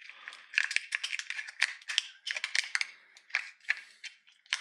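Thin stainless steel foil being folded and crimped shut by hand, making irregular crinkling crackles and clicks as the heat-treating envelope is sealed around a steel part.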